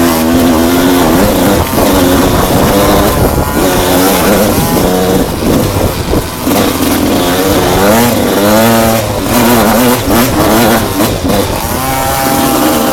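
Enduro motorcycle engine revving hard under throttle, its pitch climbing and dropping again and again through the whole stretch.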